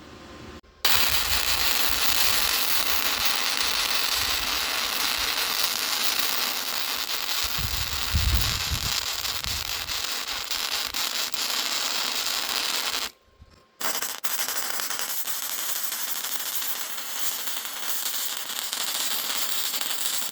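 Electric arc welding: the arc crackles and sizzles steadily as a bead is laid. It breaks off for about half a second around 13 seconds in, then strikes again and runs on.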